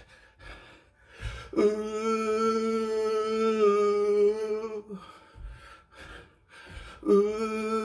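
A man's voice singing wordless held notes with no backing music: one long steady note of about three seconds, then a second note starting near the end. A couple of soft knocks come in the short pause before the first note.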